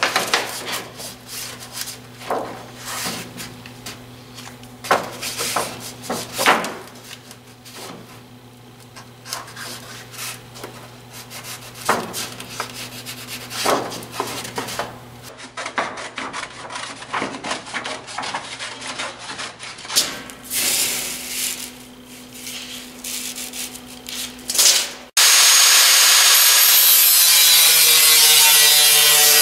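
Paper being handled, creased and cut while a template is made, irregular rustles and scrapes over a steady low hum. About 25 seconds in, an angle grinder suddenly starts cutting sheet metal, a loud steady grinding whine that is the loudest sound here.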